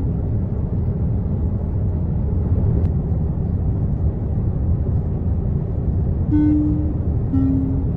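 Steady low rumble of a jet airliner in flight. About six seconds in, a two-note falling tone sounds, each note about half a second long.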